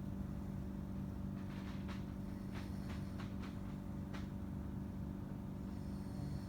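A steady low machine hum made of several fixed tones, with a few faint clicks in the middle.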